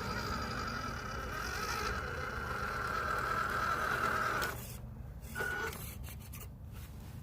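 Small electric motor of a WPL C54 RC truck whining steadily under throttle; it cuts off about four and a half seconds in and comes back in a short burst about a second later.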